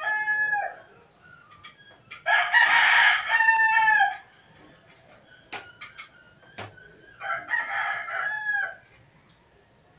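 Roosters crowing, three loud crows in turn: one dying away in the first second, a long one from about two to four seconds in, and another near the eight-second mark. A few faint clicks fall between the crows.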